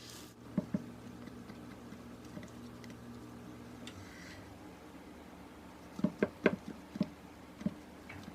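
Light knocks and taps of things being handled: two soft ones near the start and a quick cluster of five or six late on, over a low steady hum that stops about four seconds in.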